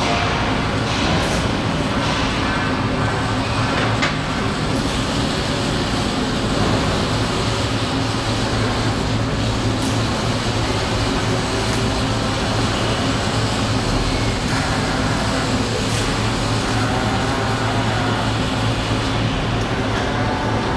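Steady machine noise of a metal-fabrication shop floor around a robotic welding cell, a constant din with a low electrical hum underneath.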